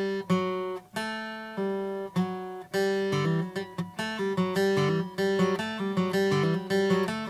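Acoustic guitar playing a riff in G: a few ringing notes and chords, then from about three seconds in a quicker run of picked notes with a hammer-on on the D string from the 2nd to the 4th fret.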